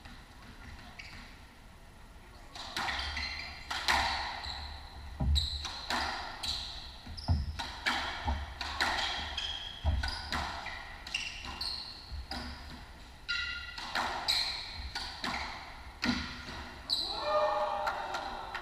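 A squash rally: the ball is struck by rackets and smacks off the walls about every second, with court shoes squeaking on the hardwood floor. The rally starts about two and a half seconds in, after a quieter start.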